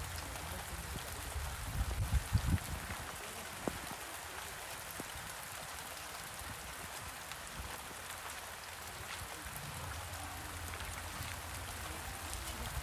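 Light rain falling, a steady hiss with scattered tiny drop ticks, and a brief low rumble about two seconds in.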